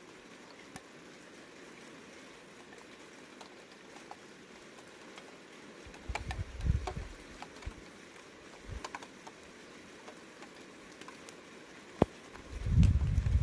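Outdoor ambience during a weak thunderstorm: a faint steady hiss with scattered light ticks, and low rumbles that come and go about six seconds in and swell near the end, with one sharp click just before.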